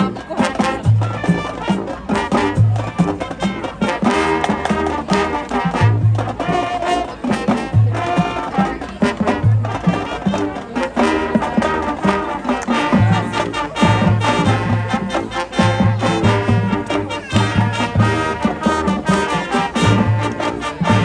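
High school marching band playing its show: brass section with trombones and trumpets over a drumline, with repeated low bass-drum hits keeping the beat.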